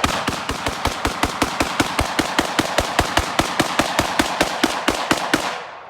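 Rapid gunfire from a semi-automatic firearm: about thirty shots in quick, even succession, roughly five a second, that stop shortly before the end, emptying a magazine.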